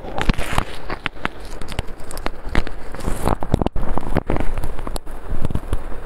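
Irregular crackling with many sharp clicks a second over a low rumble, close to the microphone.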